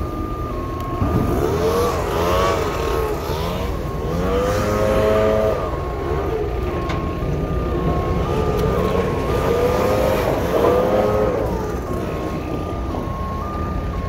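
A truck's back-up alarm sounding without pause as a two-tone warble, stepping back and forth between two pitches, over the low rumble of engines. Now and then another pitched sound swells and falls away.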